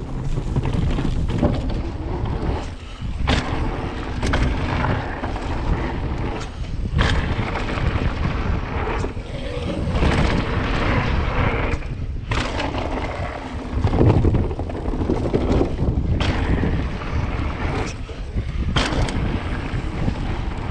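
Mountain bike descending a dirt trail, heard from the rider's action camera: steady wind rush on the microphone and tyre noise, broken every second or few by sharp clatters and knocks as the bike hits bumps and drops.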